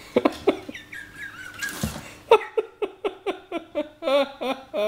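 A person laughing hard in quick repeated bursts, about four or five a second, with a brief lull holding a high wavering note about a second and a half in.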